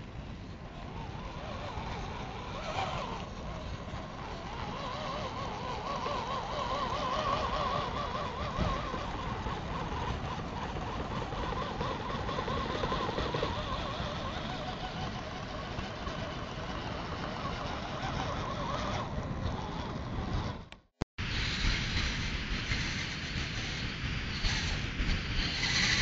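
Electric motors and gearboxes of radio-controlled scale crawlers whining as they drive, the pitch wavering up and down. About three-quarters of the way through the sound cuts out for a moment, then comes back brighter and higher.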